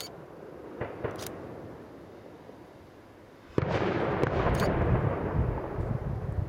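Aerial firework shells bursting: two faint pops about a second in as the earlier rumble dies away, then a sudden loud bang about three and a half seconds in, followed by a long rumble with further sharp cracks.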